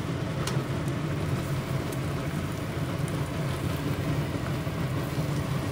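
Fried chicken pieces sizzling steadily in bubbling honey mayo sauce in a pan, with a couple of faint clicks.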